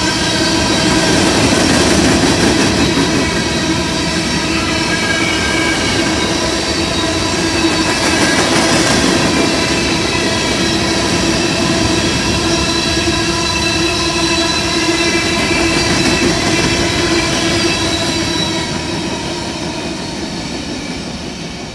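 Loaded covered hopper cars of a freight grain train rolling past at close range: a steady rumble and clatter of steel wheels on the rails, with several sustained ringing tones over it. The sound fades over the last few seconds as the end of the train passes.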